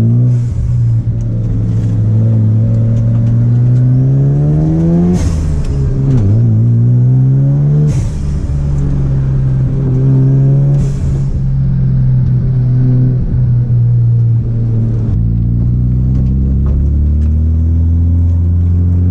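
Mazda RX-7 FD's 13B rotary engine under acceleration, revs climbing and dropping back at gear changes about five, eight and eleven seconds in, with a short hiss at each change.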